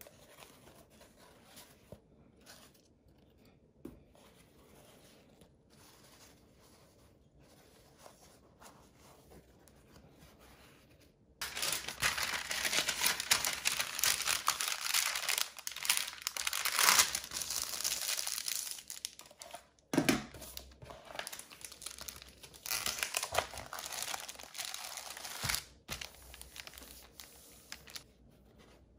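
Faint hand movements on paper for about eleven seconds, then loud rustling and crinkling as a sheet of paper is unrolled and smoothed down over paper towels, continuing in uneven spells to near the end.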